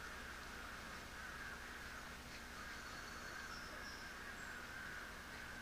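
Faint cawing of distant crows over a steady background hum.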